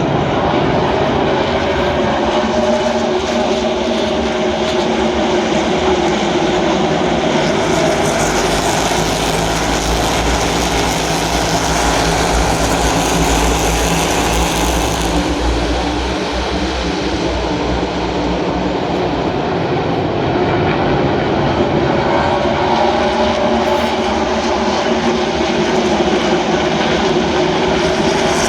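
NASCAR Cup stock cars' V8 engines running in a pack around the track, a continuous loud drone. It gets brighter about eight seconds in and eases again around fifteen seconds as cars pass close.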